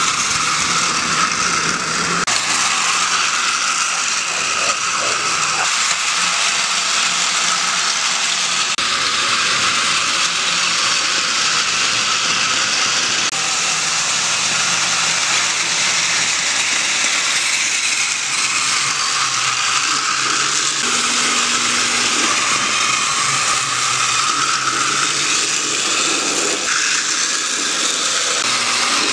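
Battery-powered TOMY Trackmaster toy train motors whirring, their plastic gearing rattling steadily as the trains run along plastic track.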